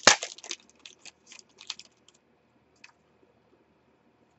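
Foil wrapper of a Select AFL Footy Stars trading-card pack being torn open and crinkled: a crackly rustle, loudest right at the start, thinning into a few light clicks of cards being handled within the first three seconds.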